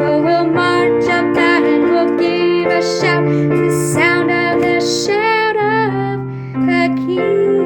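Gospel song: a sung melody with wavering held notes over piano or electric keyboard chords, the voice dropping away after about five seconds and leaving the keyboard.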